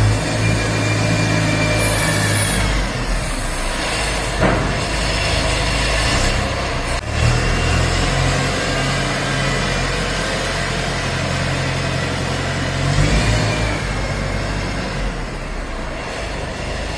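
Diesel engine of a wheel loader running as it works, its engine note changing about seven seconds in and again near thirteen seconds.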